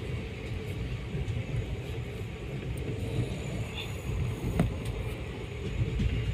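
Steady low rumble of a moving passenger train, heard from inside a sleeper coach, with one sharp click about four and a half seconds in.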